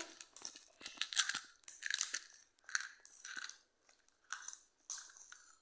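Gold foil gum wrapper crinkling in irregular crackly bursts as it is picked open by hand.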